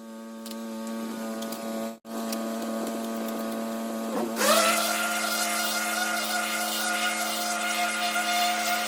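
Pressure washer running steadily with the spray off, the machine's pitched hum alone, broken by a brief gap about two seconds in. About four seconds in the trigger is squeezed: the note dips under the load and the loud hiss of the high-pressure water jet comes back.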